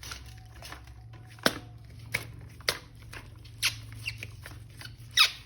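A plastic toy package being handled and opened: scattered sharp clicks and crinkles, with a few short squeaks near the end.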